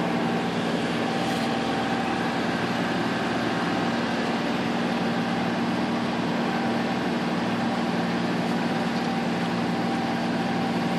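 A sailboat's auxiliary engine running steadily at a constant speed while motoring, a low, even hum over a steady hiss.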